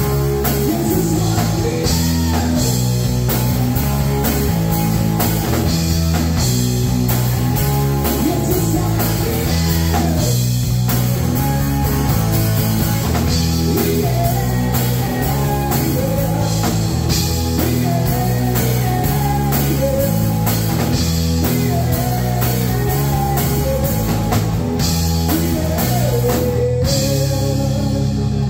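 Live rock band playing: electric guitar, bass guitar and drum kit driving a steady beat, with a man singing into a microphone.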